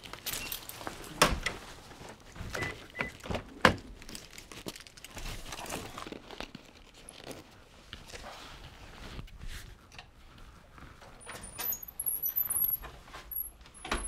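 Household handling sounds: a backpack rustling and being picked up, with scattered knocks and clunks. Near the end a metal security screen door is opened, with a few faint high squeaks or chirps.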